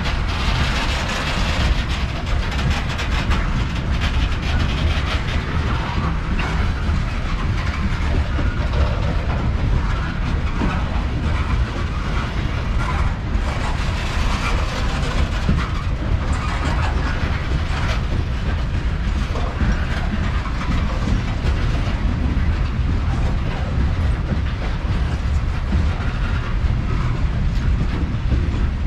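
Covered hopper cars of a freight unit train rolling past in a steady rumble, with the wheels clicking over the rail joints.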